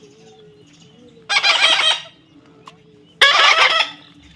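Baby parrot giving two loud, harsh squawks, about two seconds apart.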